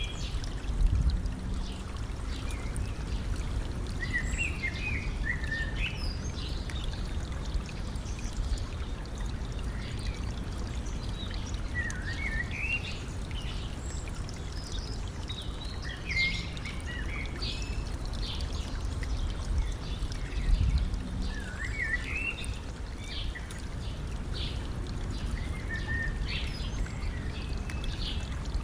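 A stream flowing steadily, with small birds singing short chirping phrases over it again and again. Twice, about a second in and about twenty seconds in, a brief louder low rumble swells up.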